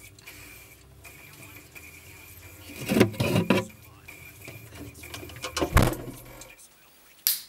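Glass jars and bottles clinking and rattling on a refrigerator shelf as a jar is taken out, about three seconds in. A heavier thump follows near six seconds in, over a steady low hum with a faint high tone that cuts off soon after. A single sharp click comes near the end.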